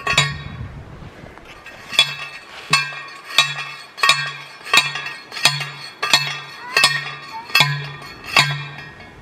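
Hand post driver pounding a steel post into the ground: about eleven metal clangs, one every second or less, each ringing briefly with a short low hum beneath.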